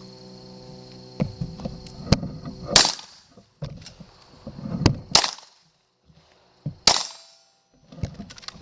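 Three gunshots about two seconds apart, each a sharp crack with a short tail.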